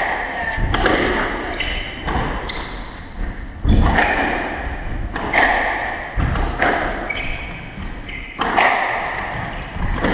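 Squash rally: the ball is struck by rackets and hits the walls with sharp thuds that ring in the court, roughly one a second, with short squeaks from shoes on the wooden floor between the shots.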